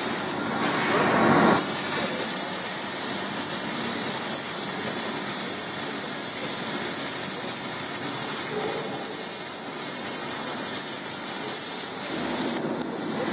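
Resanta IPR-40 inverter air plasma cutter cutting metal: a steady, loud hiss of the plasma arc and compressed air, briefly broken about a second in and again near the end.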